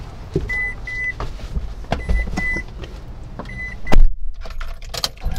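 Short electronic beeps at one high pitch, some in quick pairs, repeating among light clicks and knocks, with one loud knock about four seconds in.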